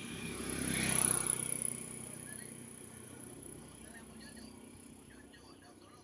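A motor vehicle passing by. Its noise swells to its loudest about a second in, then fades away over the next couple of seconds.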